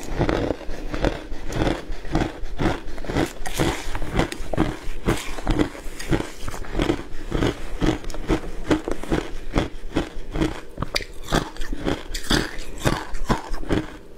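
Crushed matcha ice crunched between the teeth, a steady run of crisp bites, about two to three a second, picked up close by a clip-on microphone.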